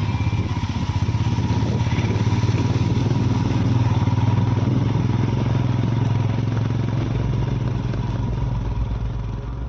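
Motorcycle engine running steadily with a low drone while riding slowly over a rough, broken road, with road and wind noise over it.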